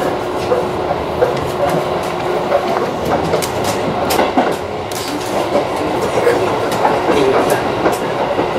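Seibu Railway 3000 series electric train running along the track, its wheels clattering over the rails with frequent sharp clicks over steady running noise. A steady hum sounds in the first three seconds.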